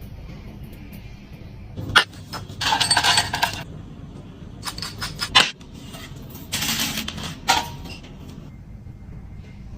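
Metal cutlery clinking and scraping on a plate, with three sharp clinks about 2, 5½ and 7½ seconds in and short scrapes between them.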